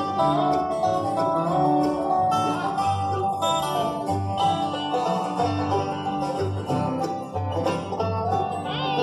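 Live bluegrass band playing: a banjo, acoustic guitars and an upright bass, the bass plucking a steady low pulse under the picking.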